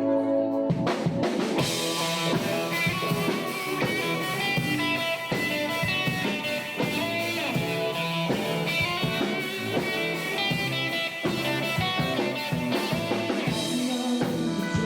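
Rock band music with guitar and a drum kit, coming in at full strength about a second in.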